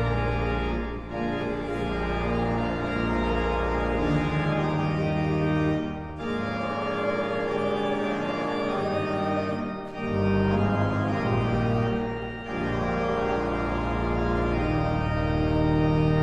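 Pipe organ playing slow, sustained chords that change every few seconds, with short breaks between phrases.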